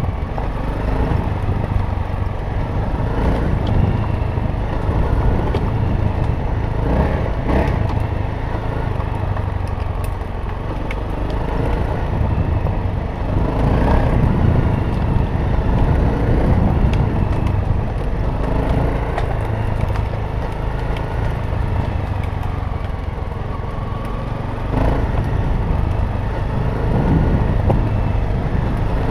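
Dirt bike engine running while the bike rides a rough dirt trail, under a heavy low rumble on the helmet camera's microphone. The engine note swells and dips several times with the throttle.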